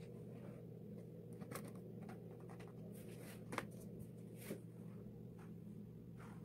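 Faint handling sounds of small stones being pressed and arranged in wet epoxy resin on a canvas: a few light clicks and soft scrapes, the clearest click about halfway through, over a low steady hum.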